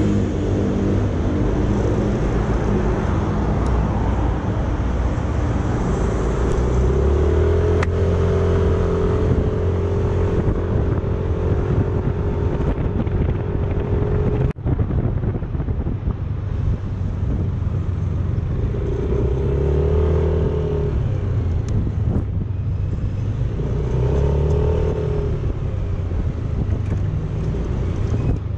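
Yamaha motor scooter running while ridden, with steady engine and road noise; the engine note rises and falls as it speeds up and slows, notably twice near the end. A brief break in the sound about halfway.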